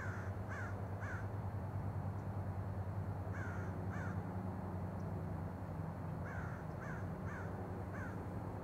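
A crow cawing in three runs: three caws, then two, then four, each a short falling call. A steady low hum sits underneath.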